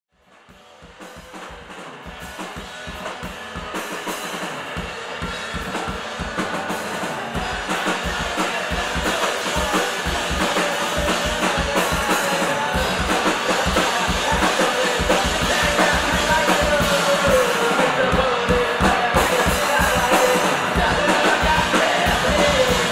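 Punk band playing live, with a drum kit driving a steady kick-drum beat under electric guitar. The music fades in over the first several seconds.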